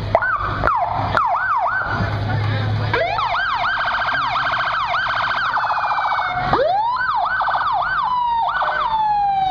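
Fire department rescue truck's siren. It rises sharply at the start and cycles up and down, stops briefly about two seconds in, then runs as a fast warble, rises again and slides down in pitch near the end.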